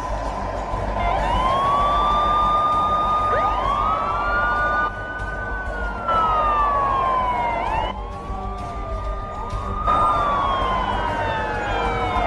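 Police car sirens wailing, more than one at once and overlapping, each rising, holding, then slowly falling.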